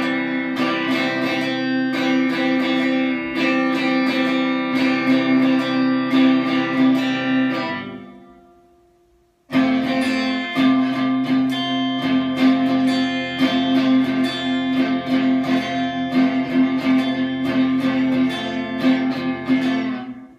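Electric guitar played solo: fast picked notes ringing over held low notes. The playing dies away about eight seconds in, stops for about a second and a half, starts again abruptly, and fades out near the end.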